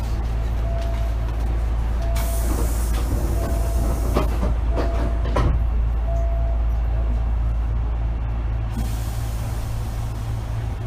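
Hankyu 8000 series electric train heard from inside the car, a steady low rumble of running noise. A hiss of air comes about two seconds in and lasts about two seconds, and a few sharp clicks follow.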